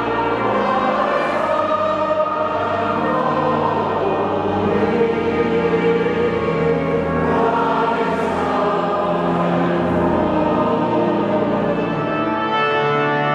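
Choir and congregation singing a hymn together in long, sustained chords. Near the end the singing gives way to held instrumental chords.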